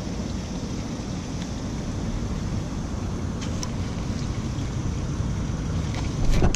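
Steady low background rumble on an open boat, with a few faint clicks partway through and a louder knock near the end.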